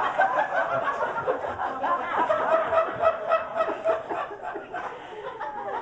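Audience laughing at a joke, many voices at once, dying down toward the end.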